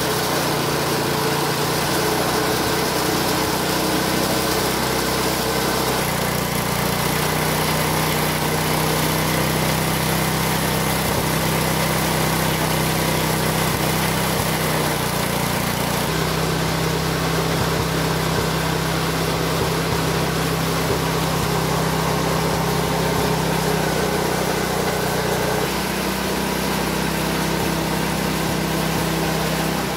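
Motor of a belt-driven spice grinding machine running steadily as it grinds spice ingredients into paste. Its hum shifts slightly a few times.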